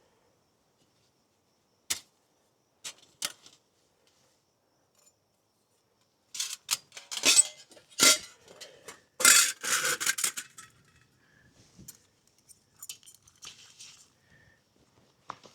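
Metal clinking and clattering as a portable firebox camp stove is handled and set up: a few single clinks, then a dense run of clattering about halfway through, and lighter scattered clinks near the end.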